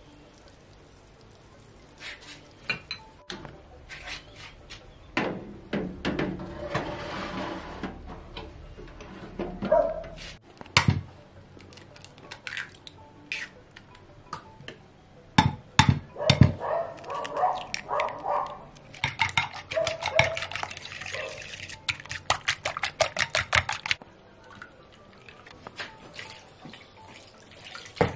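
Kitchen preparation sounds: scattered clinks and knocks of utensils and dishes, then a run of rapid, even strokes a little past the middle, which fit eggs being beaten with a fork in a bowl.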